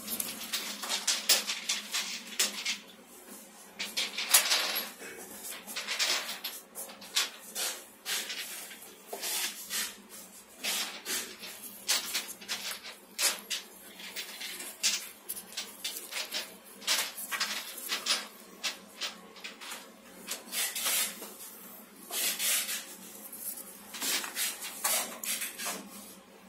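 Hands in disposable gloves handling a glossy glass perfume bottle and its cap: irregular clicks, taps and scuffing as it is gripped, turned over and set down.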